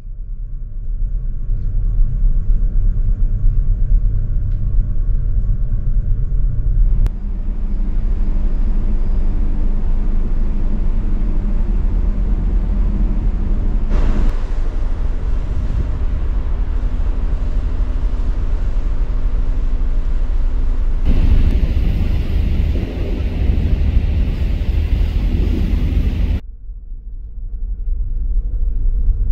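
Steady low rumble of a passenger ferry's engines and hull vibration at sea, heard in several short clips joined by abrupt cuts. In the middle stretch a broader hiss joins the rumble.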